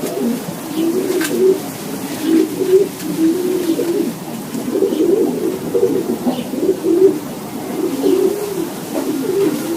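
Several racing pigeons cooing, with low calls overlapping almost without a break. There is a faint click about a second in.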